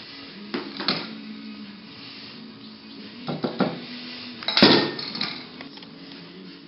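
Stainless steel mesh strainer and metal bowl knocking against each other and a plate as they are handled: a few light knocks, then one louder clank about four and a half seconds in.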